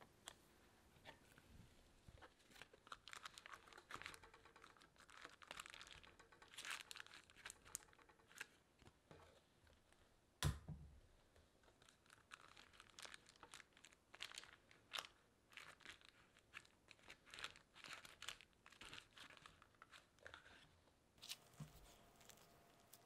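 Faint crinkling and rustling of a plastic piping bag being handled and squeezed as it is filled with thick cake batter, with one dull thud about ten seconds in.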